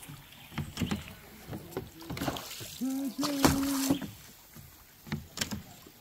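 Bamboo raft being poled along a river: scattered knocks of the bamboo pole and splashing water. About three seconds in, a held low note lasts about a second.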